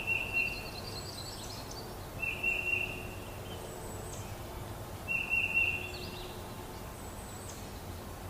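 A wild turkey gobbling three times, about two and a half seconds apart, with small birds chirping.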